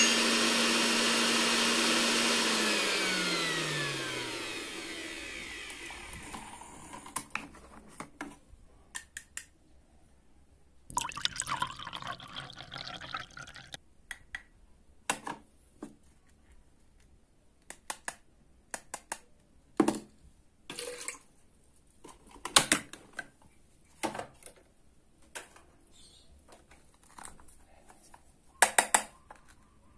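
Battery-powered toy hand mixer whirring in a bowl of liquid, then spinning down with a falling pitch a few seconds in. Later, liquid pours from the small plastic bowl into a cup for about three seconds, among scattered clicks and taps of plastic toy pieces; near the end, a wooden toy knife clacks against plastic toy fruit.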